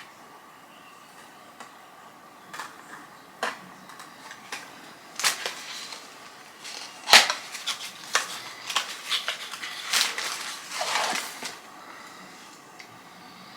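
A small cardboard product box being opened by hand and a toner bottle taken out: scattered clicks and short rustles of the packaging, thickening in the second half, the loudest a sharp click about seven seconds in.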